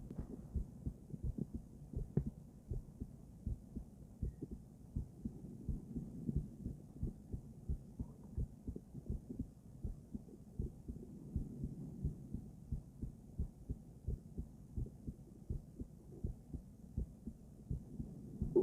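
A woman's heartbeat heard through a stethoscope and picked up by a microphone: a steady run of regular, low, muffled heart-sound thumps.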